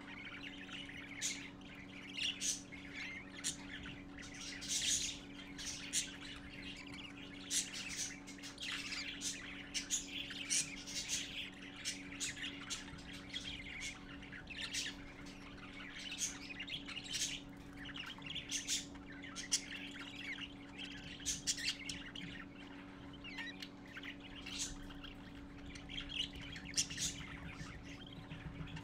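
Parakeet (budgerigar) chicks chirping and squawking in dense, rapid short calls, typical of chicks begging to be fed by the adult male. A steady low hum runs underneath.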